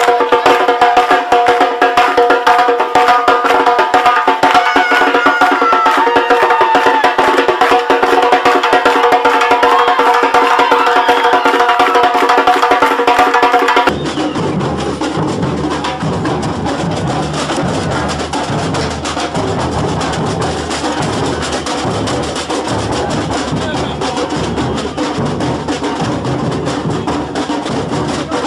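Loud carnival samba music with fast, dense percussion over held tones. About halfway through it cuts to a street samba drum group playing live, quieter and with deeper drum beats.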